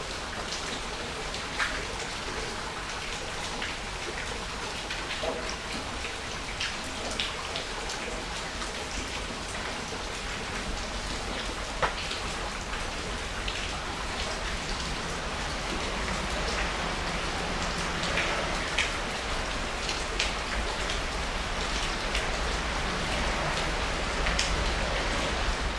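Steady rain falling on a puddle of standing water and leafy garden plants: an even patter with scattered sharper drop hits. It grows a little heavier over the second half.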